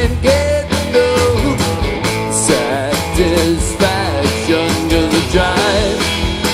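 Background country music: guitar melody over a steady beat, with no lyrics.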